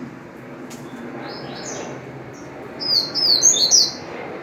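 Double-collared seedeater (coleiro) singing its wild-type song: a short high phrase about a second in, then a louder run of rapid, quickly gliding notes near the end.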